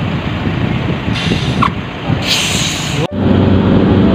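Two short hisses of compressed air from a tyre inflator hose, the second longer and louder, over a rumbling idling car engine. About three seconds in it cuts off abruptly to a steady droning hum.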